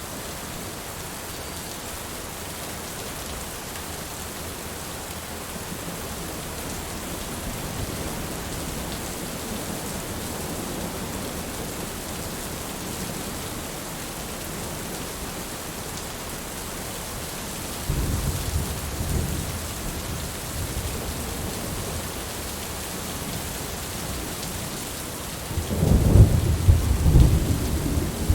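Heavy rain falling steadily as an even hiss, with thunder rumbling: a low roll of thunder about two-thirds of the way through and a louder, longer peal near the end.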